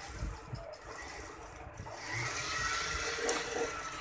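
Usha Janome Lotus sewing machine running its bobbin winder to fill a bobbin with thread, its handwheel clutch released so that only the winder turns. A steady whir with a faint whine starts about halfway through, after a few light handling knocks, with one sharp click near the end.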